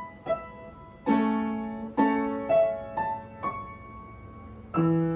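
A piano being played slowly during a piano lesson. Single notes and chords are struck one after another at an uneven pace, each left to ring out, with a deeper chord near the end.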